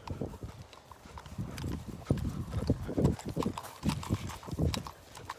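Walking footsteps through long grass, a dull thump about two to three times a second.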